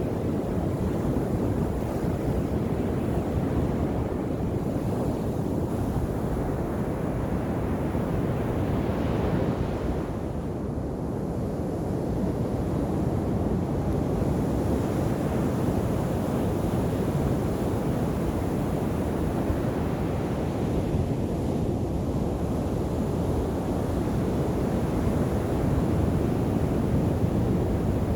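Ocean surf breaking and washing up a beach in a continuous rush, with one wave surging louder about nine seconds in and easing off just after.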